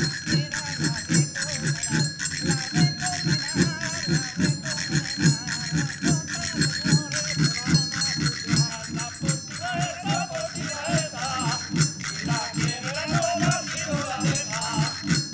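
Spanish folk jota music: a zambomba friction drum keeps a steady low beat under the metallic ringing of an almirez (brass mortar struck as a percussion instrument) and jingling. A melody comes in about ten seconds in.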